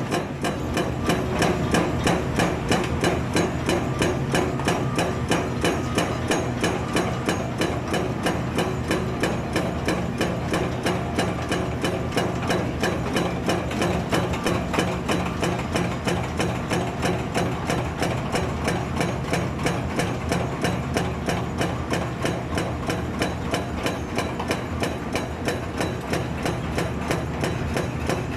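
Excavator-mounted hydraulic breaker hammer pounding in a steady, even rhythm of about three blows a second, over the steady hum of the excavator's engine.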